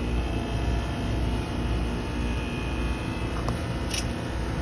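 2008 Trane XR13 heat pump running in defrost mode: a steady mechanical hum from the running unit, with two short ticks near the end.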